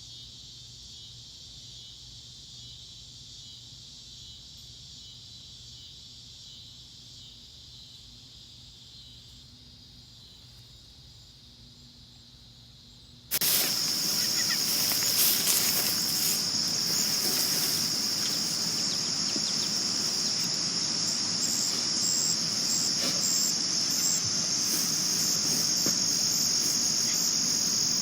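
Crickets chirping in a steady high-pitched trill, faint at first. About halfway through the sound jumps abruptly to a much louder, continuous cricket trill with more background noise.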